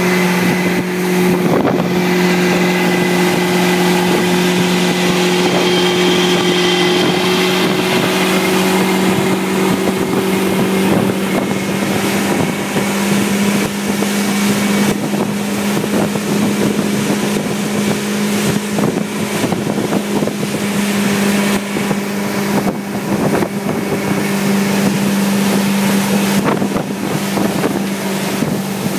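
A motorboat's engine running steadily while the boat is underway, a constant low hum with a rush of wind and water over it. The engine's pitch steps up slightly about twelve seconds in.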